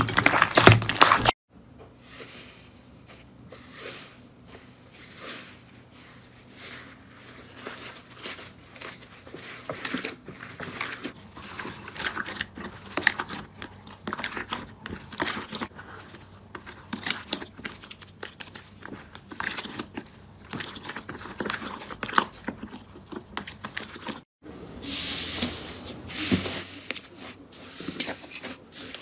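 Slime being squeezed and pressed by hand, making dense, irregular crackles and crunches. The sound breaks off sharply about a second and a half in and again near the end as a new handful starts.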